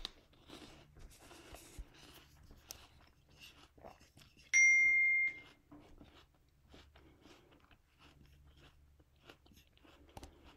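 A single high electronic beep, steady in pitch and lasting under a second, a little before the middle, over faint scattered clicks and rustles of handling.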